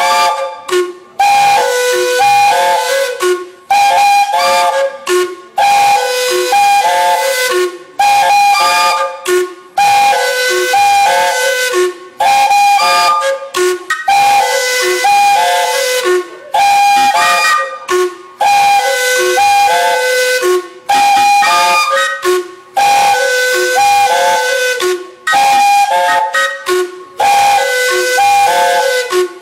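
Whistles of several narrow-gauge steam locomotives played together as a composed musical piece. The whistles sound short notes at several pitches in a steady repeating rhythm with brief breaks, over hissing steam.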